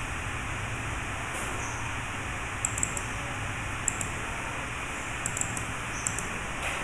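Computer mouse clicking: a few sharp clicks in small clusters, some in quick pairs, over a steady background hiss and hum.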